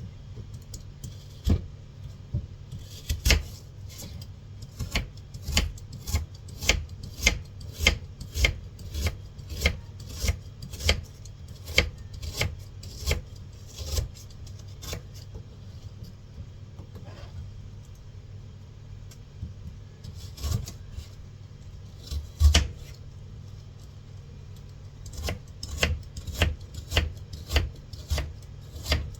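A knife chopping fruit on a cutting board: sharp knocks of the blade on the board, about two a second for long runs, pausing for a while in the middle and picking up again near the end.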